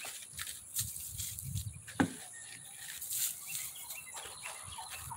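Dry granular fertilizer shaken from a plastic bucket, pattering and rustling onto soil and leaf mulch along a trench, with a single sharp knock about two seconds in.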